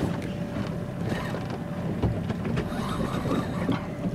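Water slapping and rumbling against the hull of a small fishing boat, with a faint steady hum and scattered light clicks.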